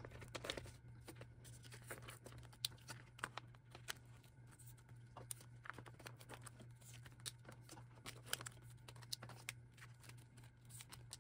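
Photocards being slid into the pockets of plastic binder sleeves: faint crinkling of the plastic pages with scattered small clicks and rustles, over a steady low hum.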